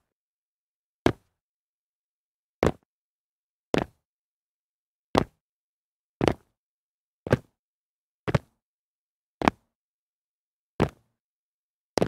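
Feet landing a jump on concrete, repeated about ten times at roughly one landing a second, each a short thud with silence between.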